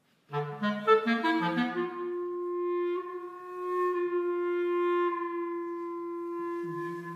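Solo clarinet playing contemporary funeral music: after a moment of silence, a quick flurry of short notes settles into one long held note that swells and fades. Near the end a lower note sounds beneath the held one.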